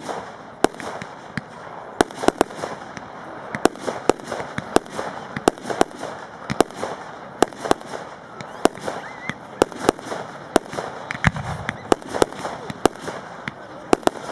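Fireworks display: aerial shells bursting in a rapid, irregular string of sharp bangs, about two to three a second.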